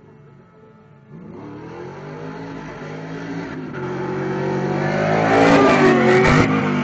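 A NASCAR stock car's 800-horsepower V8 and a sport motorcycle racing flat out side by side: their engines come in about a second in and grow steadily louder as they close in, passing at full throttle near the end.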